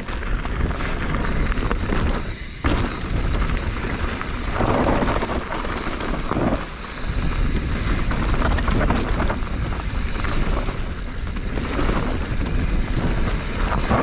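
Mountain bike descending a loose dirt trail: tyres rolling and skidding over loose dirt and rock, with wind buffeting the microphone as a heavy rumble and a few louder surges.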